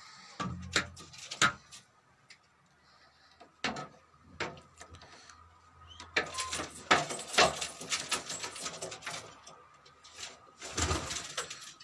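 Domestic fancy pigeons moving about: scattered clicks and scuffles, a denser stretch of rustling and fluttering from about six seconds in, and occasional cooing.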